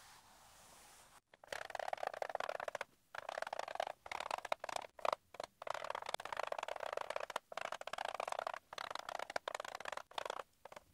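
Chalk scratching on a blackboard during handwriting, starting about a second and a half in: irregular strokes with short pauses between them.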